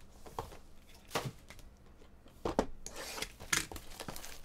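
Trading-card boxes and their clear plastic wrapping being handled: a few sharp taps and knocks of cardboard, with plastic crinkling and tearing in the second half.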